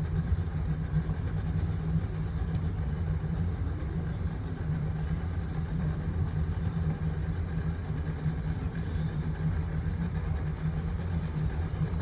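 Boat engine idling steadily, a constant low hum.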